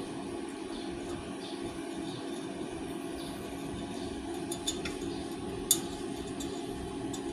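Steady electric hum of a MIG welding setup standing idle with no arc struck, with a few light metallic clicks near the end. The sharpest click comes almost six seconds in.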